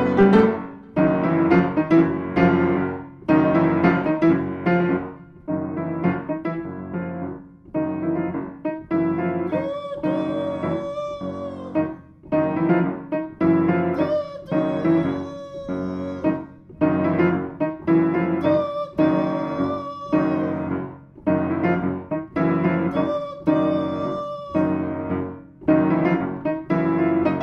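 Piano music: phrases of notes and chords struck and left to die away, with a few longer-held higher melody notes in the middle.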